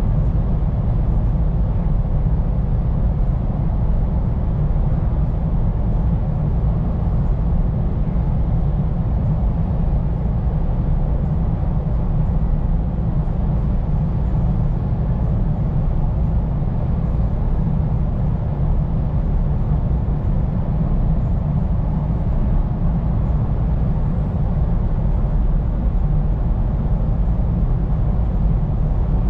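Scania P410 truck under way, heard from inside the cab: a steady engine drone with road noise, running evenly without a break.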